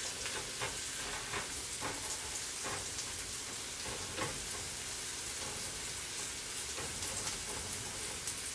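Vegetables sautéing in a frying pan, a steady sizzle, as a silicone spatula stirs them, with a few light scrapes and taps of the spatula against the pan.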